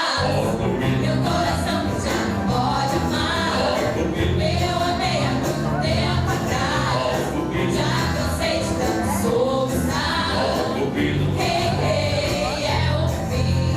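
Live music: several voices singing together over a band, with a steady bass line and drums.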